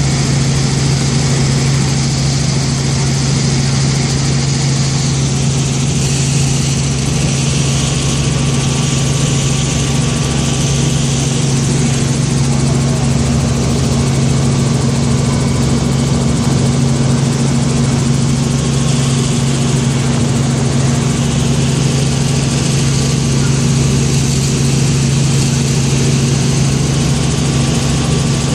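Steady drone of a Robinson R44 piston helicopter in cruise flight, heard from inside the cabin: a constant low engine and rotor hum over an even rush of air noise.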